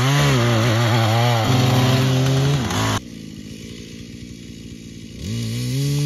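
Chainsaw cutting through lake ice, its engine pitch dipping and recovering as the bar takes and loses load. About three seconds in it cuts off suddenly to a much quieter low rumble, and the saw's engine rises again near the end.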